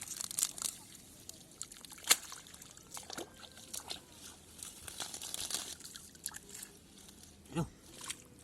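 Hands working in shallow muddy water: irregular splashing and sloshing, with a sharp splash about two seconds in and another near the end.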